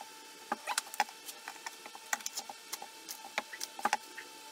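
Irregular light clicks and ticks of small metal sling-swivel-stud hardware being handled and fitted by hand on a wooden bench, over a faint steady hum.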